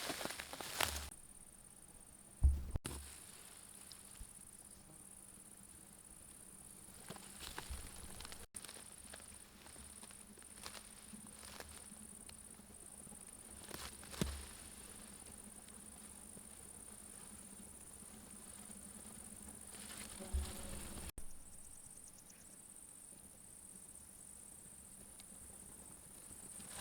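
Field insects chirring steadily at a high pitch, with a few short, low thumps several seconds apart.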